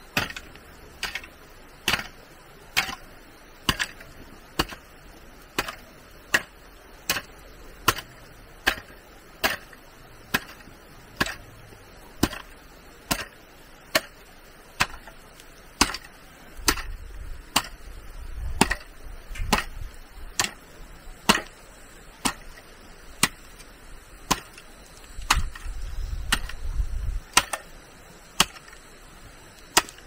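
A hand tool chopping in a steady rhythm, a little more than one stroke a second, each stroke a sharp hit. A low rumble comes up twice, in the middle and again near the end.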